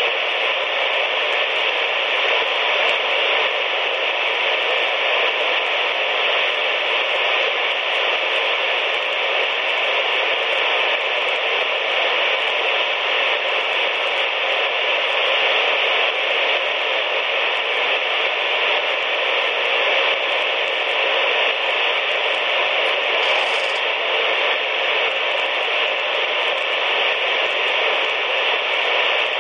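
CB radio tuned to channel 19 (27.185 MHz) putting out steady receiver static, with no voices on the channel.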